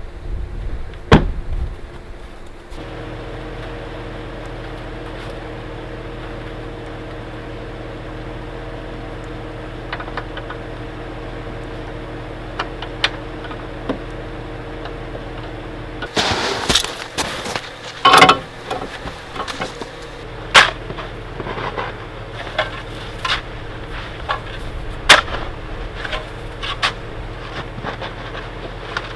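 Gusting wind for the first couple of seconds, then a steady motor hum with several constant tones. From a little past halfway, a string of knocks, clicks and rustles of things being handled.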